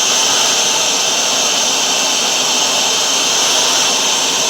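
Hoover Dual Power Max carpet washer running in tool mode: a steady motor and suction noise with a strong high hiss.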